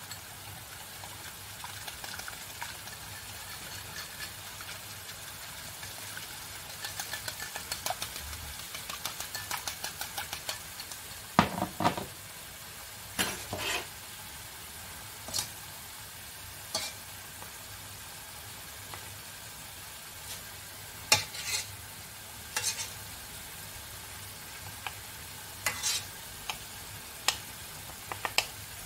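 A metal whisk beating rice flour and water in a bowl: a fast run of light ticks that stops about eleven seconds in, followed by a few loud clatters as the bowl and whisk are set down. Scattered clinks of a spoon in the pot come later, over a steady hiss from the pans on the stove.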